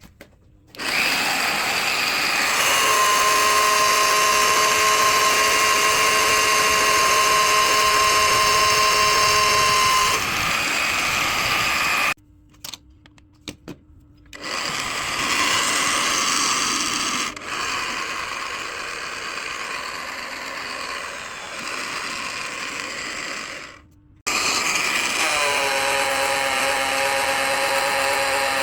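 An electric power tool's motor running in three long runs of about ten seconds each, stopping twice in between; at the last start its whine rises as the motor spins up.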